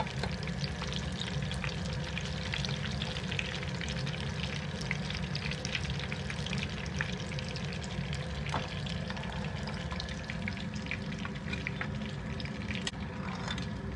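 Paneer-stuffed bread rolls deep-frying in hot oil on a high flame: a steady sizzle full of fine crackling pops, with a few taps and scrapes of a slotted steel skimmer lifting them out. A steady low hum runs underneath.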